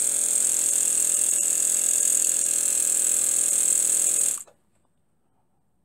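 Miniature three-cylinder single-acting model steam boat engine running smoothly at speed on a low pressure of about 3 to 6 PSI, a steady high hiss over an even hum. It cuts off suddenly about four and a half seconds in.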